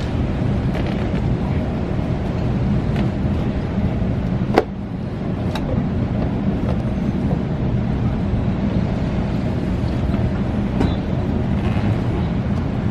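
Steady low rumble of a sailing ship under way at sea, with wind on the microphone, and one sharp knock about four and a half seconds in, with a few fainter ticks as lines are hauled.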